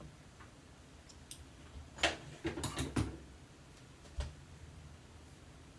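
A few light clicks and taps, several close together about two to three seconds in and one more, with a dull knock to it, about four seconds in, over a low steady room hum.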